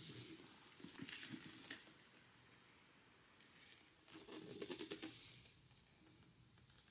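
Faint rustling and light taps of a hardcover book being handled and turned over in the hands, in two bouts with a quieter lull in between.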